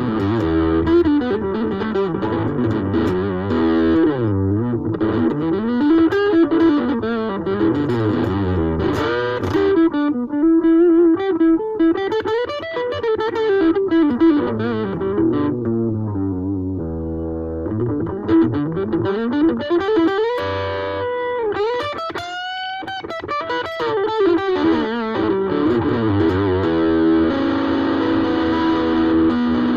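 Ibanez AXS42 electric guitar wired with solid-core vintage wire, played as a melodic lead line with slides and string bends. A little past the middle there is a high rising bend, and near the end the guitar settles into held chords.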